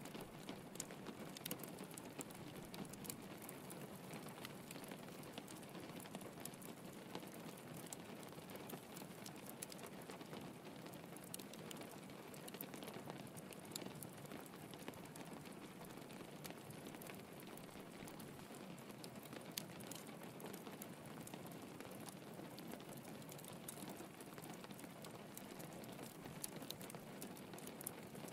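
Steady rain pattering on a window, with small crackles from a wood fire.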